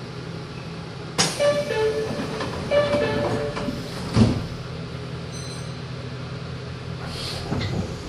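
Meitetsu 6000 series train standing at a station platform, its steady low hum filling the background. A two-note falling chime sounds about a second in and again a second and a half later, and a single thump comes about four seconds in.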